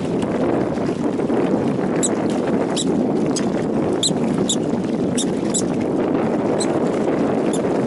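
A small dark mammal, taken by the observer for a mink, gives about ten short, high, thin squeaks at irregular intervals, starting about two seconds in. A steady low rushing noise runs under them and is the loudest sound.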